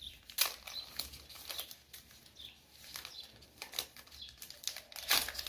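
Thin plastic protective film being peeled off an earbud charging case: irregular crinkling and crackling, loudest about five seconds in.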